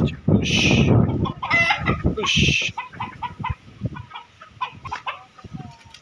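Desi chickens clucking in short, repeated calls as they are driven toward their coop, with two brief hissing noises in the first few seconds.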